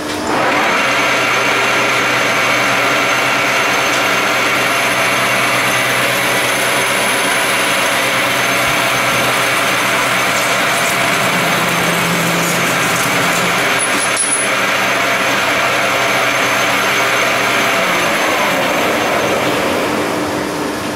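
Metal lathe starting up and a parting tool in a Multifix BT25120 parting holder cutting off a spinning metal bar, with hardly any cutting oil. The running and cutting noise is loud and steady with a whine, and it drops away about eighteen seconds in as the cut finishes.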